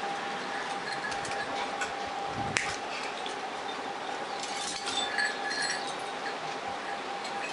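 Scattered light clinks of small brass bells and brass tube beads being handled while a chime is assembled, with one sharper click about two and a half seconds in, over a steady faint hum.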